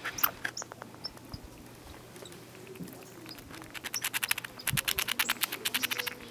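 American red squirrel gnawing and chewing on food held in its paws, a string of quick crunchy clicks that thickens into a fast run in the second half.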